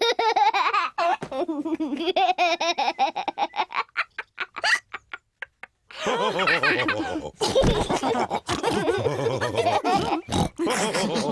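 Cartoon pig characters laughing together. The laughter breaks into short pulses and stops briefly about five seconds in, then several voices laugh again.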